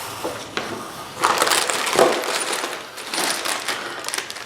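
Bagged TV-mount screws and washers rattling and jingling as the hardware packs are handled, with crinkling of the plastic bags, in two main bursts about a second in and around three seconds in.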